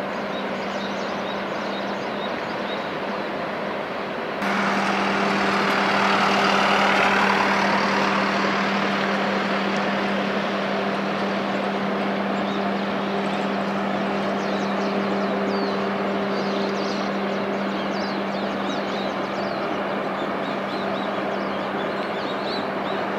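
Passing LNG carrier's machinery giving a steady low hum over a steady rushing noise; the whole sound steps up abruptly about four seconds in. A few faint high chirps come in over it later on.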